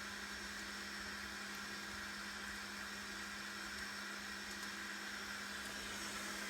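A steady low hum with an even hiss.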